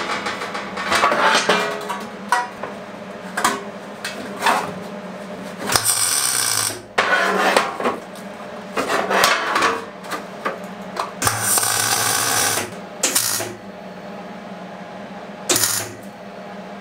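MIG welder tack-welding the seams of a thin sheet-steel tray: several short bursts of arc crackle, the longest about a second and a half, stopping and starting between tacks over a steady low hum. The seams are only tacked because the thin sheet could burn through.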